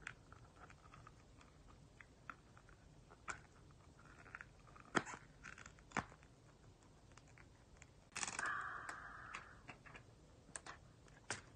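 Clear plastic phone case being handled on an iPhone 13 Pro Max: scattered light clicks and taps of plastic, with a scraping rustle about eight seconds in as the phone is pulled out of the case.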